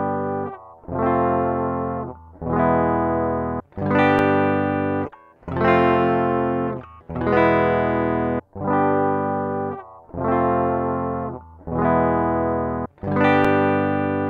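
Dry, unprocessed direct (DI) signal of an Ibanez RGR321EX electric guitar with a Fokin Grizzly pickup: chords struck about every second and a half and left to ring briefly. It is recorded first through a Tascam sound card's instrument input, then through an AMT DI box.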